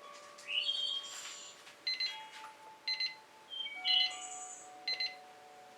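Short, high chirping beeps repeating about once a second, with a couple of rising whistled chirps between them.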